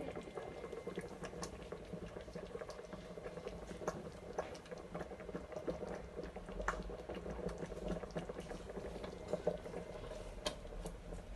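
Tomato and onion sauce bubbling in a pot, a steady simmer with many small irregular pops and spits.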